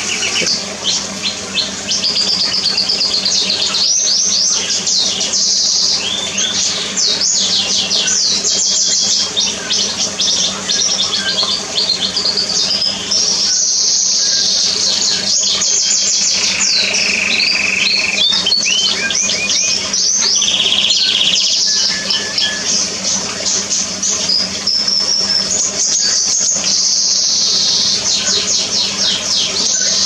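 Several songbirds calling and trilling almost without pause: rapid high-pitched chirps and trills, loudest in spells around a third of the way in and again near the end. A steady low hum runs underneath.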